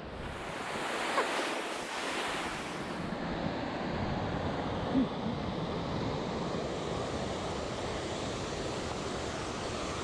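Steady rushing of Clearwater Falls, a broad cascade of small waterfalls spilling over mossy rocks. A brighter hiss over it in the first three seconds cuts off abruptly, and there is one brief low sound about halfway through.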